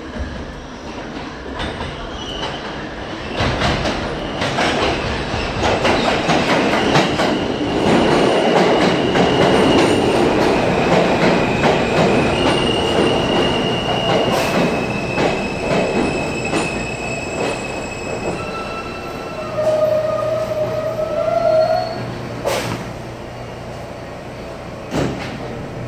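A New York City subway N train of R160-series cars pulling into an underground station. Wheels and rails rumble and clatter, building as the cars come alongside, with high steady squeals from the wheels as the train slows. Near the end it eases to a stop, with a lower whine and a couple of sharp clicks.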